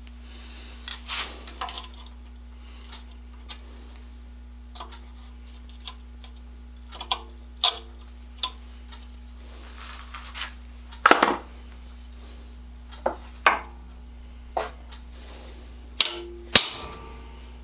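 Irregular clicks and knocks of tools and parts being handled on a workbench, a dozen or so, the loudest about eleven seconds in and twice near the end, over a steady low hum.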